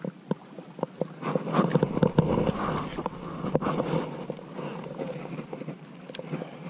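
Close handling noise from an angler's gloved hands and fishing gear: scattered sharp clicks, and a denser stretch of rustling and scraping from about a second in until about four seconds, as a small hook is baited and the rod is swung out over the water.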